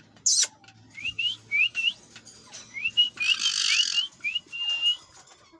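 A series of about ten short, rising whistle notes, the last one held a little longer, with a brief harsh burst about three seconds in.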